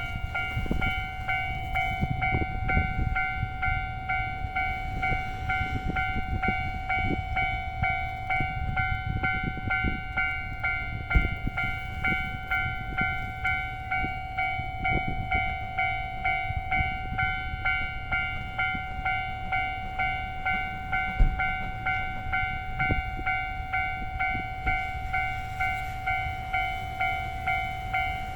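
Level crossing warning bell ringing in an even, pulsing ding-ding at about two strokes a second, over the low rumble and occasional knocks of a passing train's wheels on the rails.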